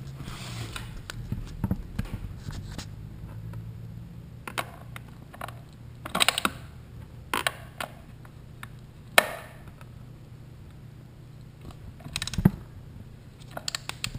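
Socket ratchet clicking and knocking in short, uneven bursts as it loosens the coolant drain bolt under a Honda NT700V's engine, over a low steady hum.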